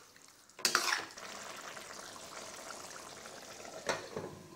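Chicken curry sizzling in a stainless steel kadai, with a steel ladle scraping and knocking through it about a second in. Just before the end a glass lid is set down on the pan.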